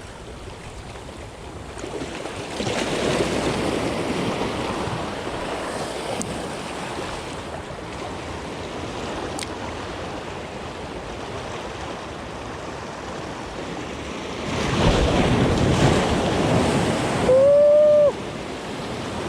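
Ocean waves surging against a rocky shore, swelling a few seconds in and then a bigger wave washing in loudly about fifteen seconds in. Just after the big wash comes a short, loud pitched sound, the loudest moment.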